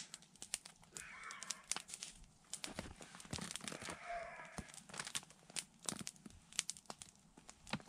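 Small campfire of dry twigs crackling with irregular sharp pops, with pieces of salo roasting on sticks over it.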